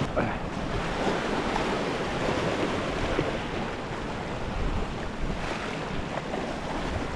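Sea surf washing and breaking against a rocky shore ledge: a steady rushing wash of water over the rocks.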